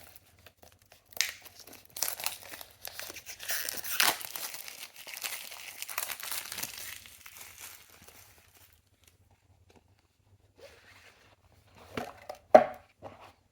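Packaging being ripped open and crumpled by hand: several seconds of tearing and crinkling, then a lull. Near the end a few light knocks, the last a sharp tap.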